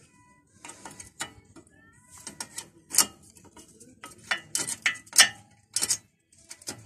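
Irregular metallic clicks and scrapes as a thin steel anti-squeal shim is worked into place on a car's disc brake pad, with the sharpest clicks about three and five seconds in.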